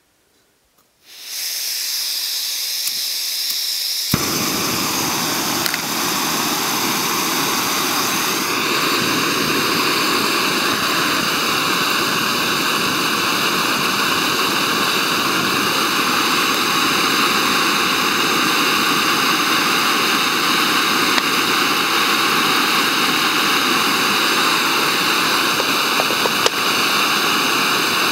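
MSR Pocket Rocket canister stove on a Campingaz C300 gas canister: unlit gas hisses from the burner once the valve is opened, then the burner lights about four seconds in and runs steadily, heating a titanium pot. The flame is not turned up to full blast.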